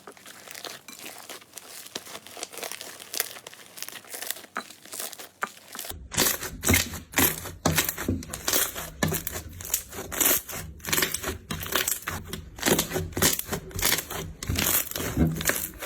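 Slime being squeezed and poked by hand, giving off a stream of small crackles and pops. About six seconds in the popping turns louder and denser, with fuller, deeper squelches.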